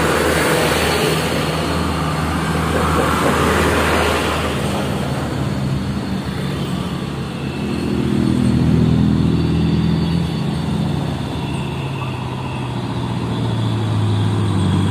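Diesel trucks and other traffic passing close on a road. A loud rush of engine and tyre noise as a truck goes by comes first, then engine notes of approaching vehicles swell and fade. A light truck's engine grows louder near the end.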